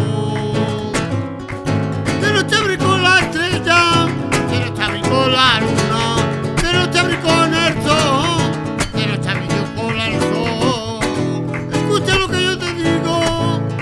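Live acoustic guitar strummed in a flamenco rhythm, with a singer carrying a wavering, ornamented melody over it.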